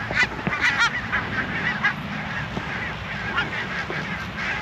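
A flock of geese honking, many short calls overlapping and repeating without a break, over a steady low rumble.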